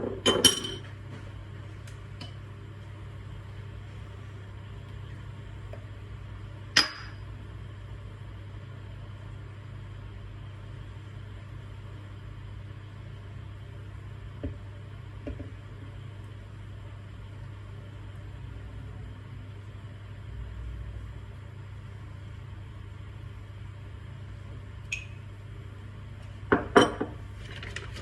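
A few sharp clinks and knocks of glass and kitchenware, one near the start, one about seven seconds in and a couple near the end, over a steady low hum.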